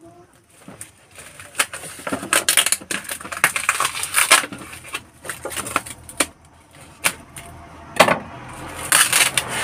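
Cardboard box being handled and opened: irregular scraping and rustling of the carton, with scattered sharp knocks, the loudest about eight seconds in, and hissy bursts near the end as the packing tape is worked at.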